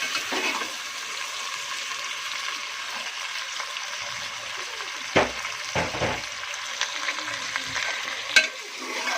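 Chicken pieces frying in hot oil with onions in a karahi, a steady sizzle as they are stirred. A few sharp knocks and scrapes of the spoon against the pan come about five, six and eight seconds in.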